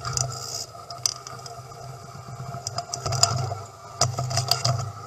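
Atlas farm loader's engine running, swelling and easing off several times, with clattering knocks and scraping as the steel bucket works through loose soil.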